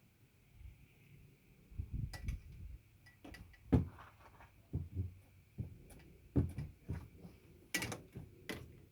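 Bicycle parts and cable being handled during a repair: irregular light clicks and knocks, the loudest about four seconds in.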